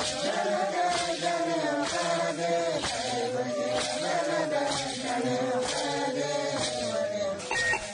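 Vocal chanting in long held notes that step slowly up and down in pitch: the closing music of a podcast jingle.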